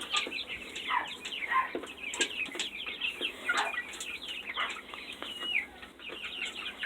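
A flock of chickens calling in the coop, with many short, overlapping calls, most of them falling in pitch.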